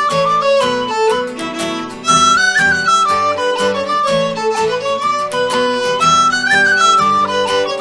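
Fiddle, tin whistle and acoustic guitar playing an Irish slide: fiddle and whistle carry the melody together over strummed guitar chords. The same phrase climbs to a high note twice, about four seconds apart.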